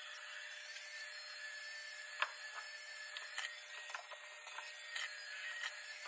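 iRobot Roomba J7+ robot vacuum running as it cleans carpet strewn with test debris: a steady whirring with a thin high whine and a few sharp clicks, the loudest about two seconds in.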